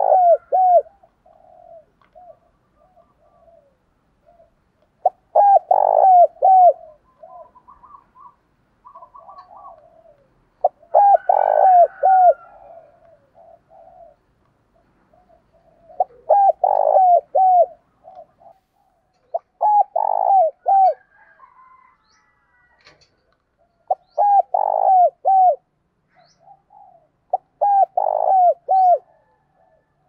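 Spotted dove cooing: a loud, clear phrase of several notes, repeated every four or five seconds, the full song of a decoy (mồi) dove.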